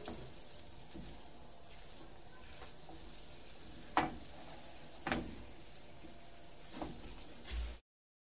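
Chopped peppers, onion, parsley and tomato sizzling softly in a frying pan as a silicone spatula stirs them, with several sharp knocks of the spatula against the pan. The sound cuts off abruptly into silence just before the end.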